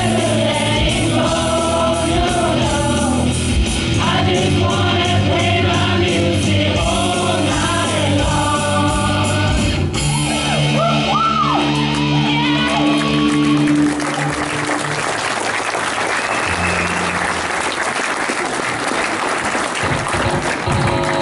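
A song sung to backing music ends on a held final chord, with sliding vocal runs over it. About four seconds later audience applause takes over.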